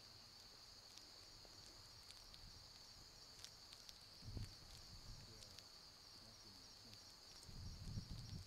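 Faint, steady high-pitched chorus of insects such as crickets, with a few soft ticks. Low rumbling swells come about four seconds in and again near the end.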